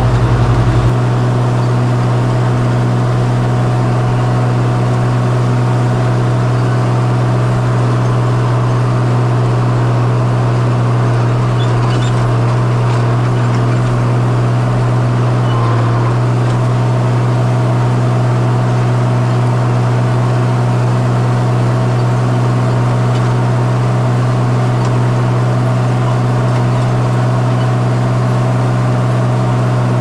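Oliver farm tractor engine running steadily under load, towing a loaded lime spreader, with a strong low drone.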